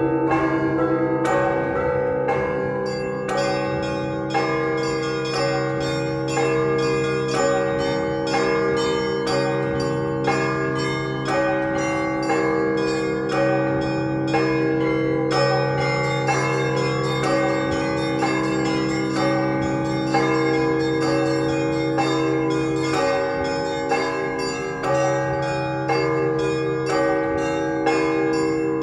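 Russian Orthodox church bells ringing a festive peal: small bells chiming in a quick, dense rhythm over the steady hum of the larger bells, with a heavier stroke about every two seconds.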